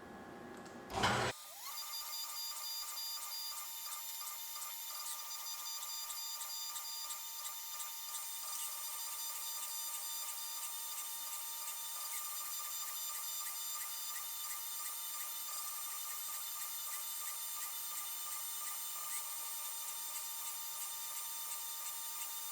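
CNC mill cutting brass dry, without coolant: after a short loud burst about a second in, the spindle and cutter run with a steady high-pitched whine and faint ticking.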